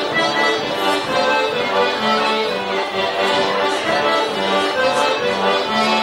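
Accordion playing a traditional dance tune: a melody over a regular on-and-off bass.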